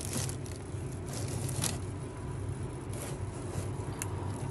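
Plastic shopping bags and packaging crinkling in short bursts as snacks are handled, over a steady low hum.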